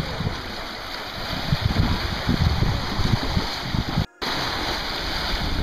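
Small waves washing onto a sandy beach and around rocks, a steady rushing wash, with wind buffeting the microphone in irregular low gusts. The sound breaks off for a moment about four seconds in.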